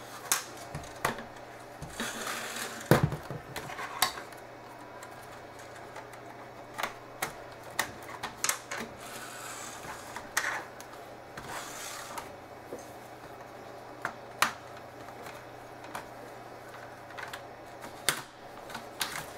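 Plastic clips of a Samsung NP355V5C laptop keyboard clicking and snapping as the keyboard is pried out by hand. Irregular sharp clicks, with a few short stretches of plastic scraping, the largest snap about three seconds in.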